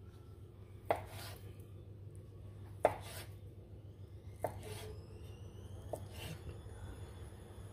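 Knife slicing through a ball of fresh mozzarella and knocking on a wooden cutting board, four sharp knocks every second and a half or so, over a low steady hum.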